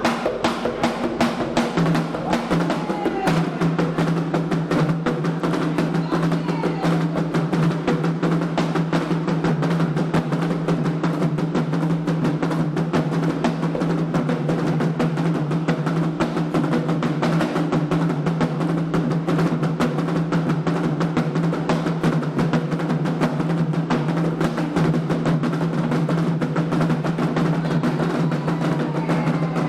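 Candomblé atabaque hand drums playing a fast, dense ritual rhythm, with a steady low tone running underneath.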